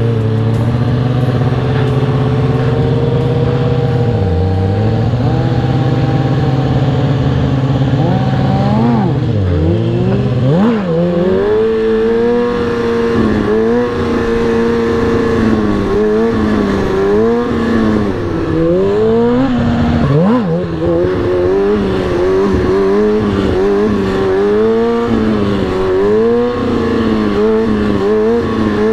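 Sportbike's inline-four engine held at fairly steady revs with a couple of brief drops, then revved up and down again and again, about once a second, as the throttle is worked during stunt riding.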